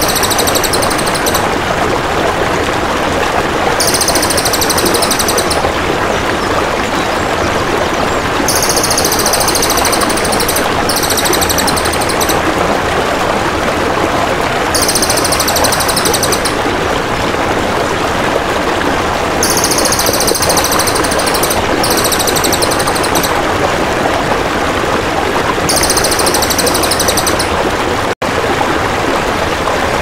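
Crested jay (cililin) calling: high, fast pulsed trills about a second and a half long, repeated every few seconds and sometimes twice in a row, over steady loud flowing water. The sound cuts out for an instant near the end.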